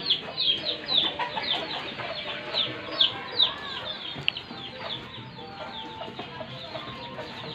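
Birds chirping: a steady run of short, high calls, each dropping in pitch, several a second, thinning out in the second half.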